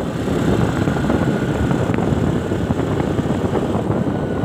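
Motorcycle engine running steadily as the bike cruises along a paved road.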